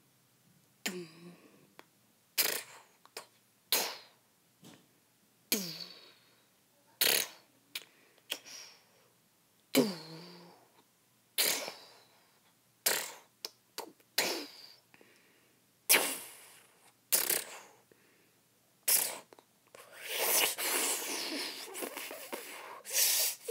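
A string of short, sharp sound effects about once a second, a few of them dropping in pitch, then a steady rushing noise for the last few seconds.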